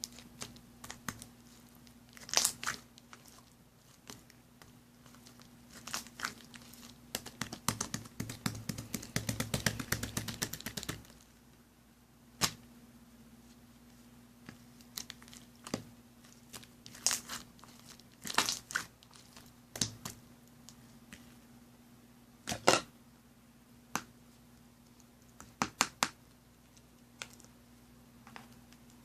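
Handling noises: scattered taps and rustles, with a few seconds of dense crinkling like paper or plastic being worked about seven seconds in, over a faint steady hum.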